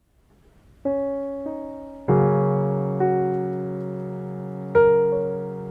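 Slow, soft piano music: single notes, then sustained chords struck every second or so, each fading away, beginning about a second in.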